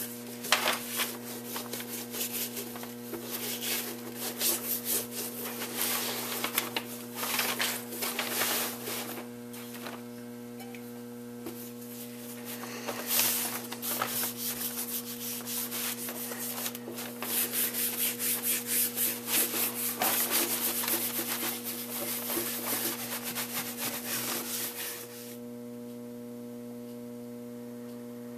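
Repeated rubbing strokes of a dauber brush over veg-tan leather, working neatsfoot oil into the finish. The strokes stop about 25 seconds in, leaving a steady electrical hum that also runs underneath them.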